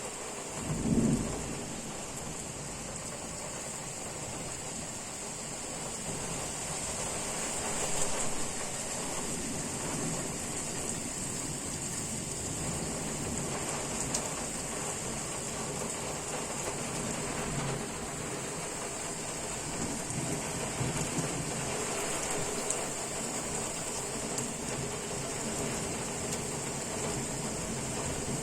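Heavy downpour: a steady hiss of rain, with a brief, loud, low rumble of thunder about a second in and a smaller swell about eight seconds in.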